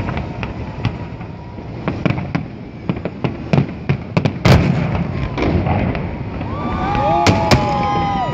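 Fireworks salute bursting overhead: a running series of bangs and crackles, with a loud bang about four and a half seconds in and two sharp bangs in quick succession near the end. A held, pitched whistling tone comes in over the last couple of seconds.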